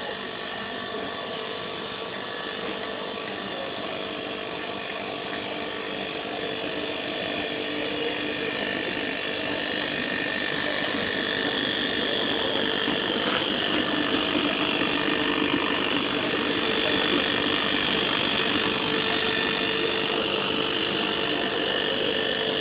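Model steam locomotive running along its track: a fast, even mechanical clatter with a steady whine under it. It grows louder as the engine draws near, then holds.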